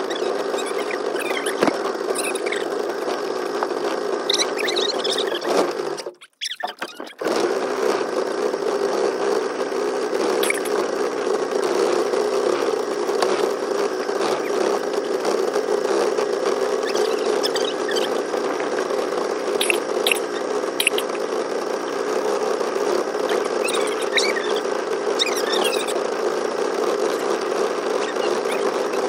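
Small boat motor running with a steady buzzing whine, like a fly. About six seconds in it drops out for about a second, then carries on. Short high squeaks come and go over it.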